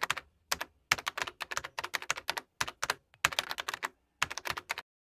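Keyboard typing sound effect: quick, irregular key clicks in short runs with brief pauses, accompanying text being typed on, stopping near the end.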